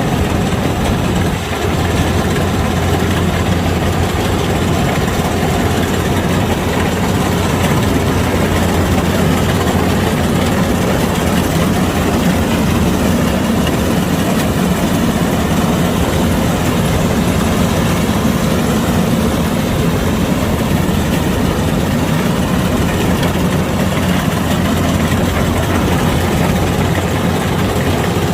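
Kubota DC-105X combine harvester running steadily, its diesel engine making a loud, continuous low drone.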